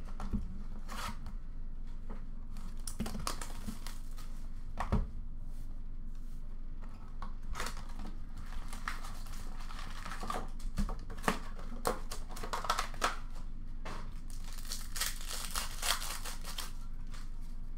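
Foil wrappers of Upper Deck SP Authentic hockey card packs being torn open and crinkled by hand, in irregular ripping and crackling bursts with a few sharp knocks, busiest near the end.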